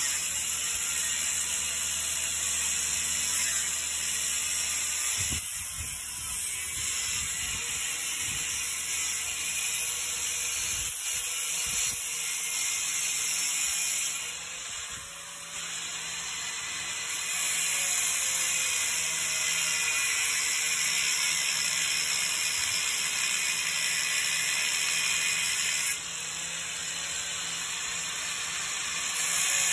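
Corded angle grinder cutting into a steel truck crossmember to notch it for oil-pan clearance. It runs steadily, with a quieter spell about halfway through and another near the end.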